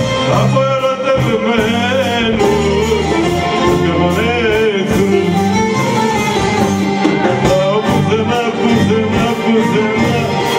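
Live Greek popular music: bouzoukis and an electric bass playing, with a man singing into a microphone.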